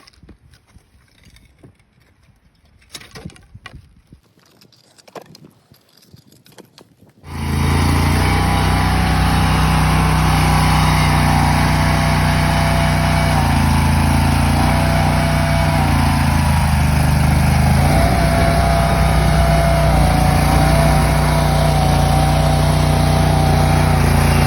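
A few faint knocks and clicks, then about seven seconds in a loud engine cuts in abruptly and runs steadily, its pitch stepping up and down a little as the load or throttle changes.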